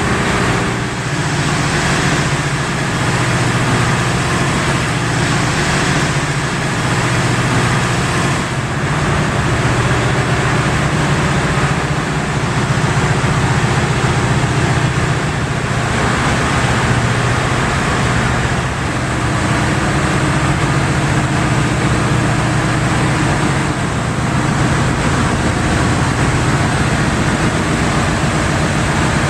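CAT 3616 V16 gas engine driving an Ariel JGZ-4 four-throw reciprocating compressor, running steadily with a loud, dense mechanical noise.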